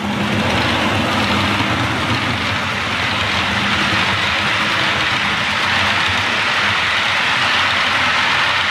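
OO-gauge model train running along the layout's track: a steady rumble and hiss of wheels and motor that starts abruptly and holds even.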